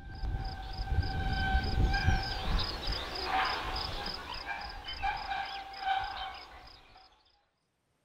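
Wind rumble with steady whistling tones over it and a quick, regular high ticking of about three or four a second, fading out about seven seconds in.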